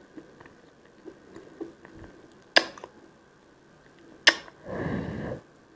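Edible chalk being bitten: two sharp crunches about two seconds apart, then a short muffled crunching rustle near the end.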